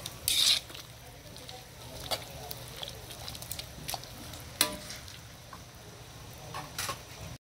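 Metal spatula stirring vegetables in a wok of simmering broth: scattered clinks and scrapes against the pan, the loudest a scrape about half a second in and a sharp clink at about four and a half seconds.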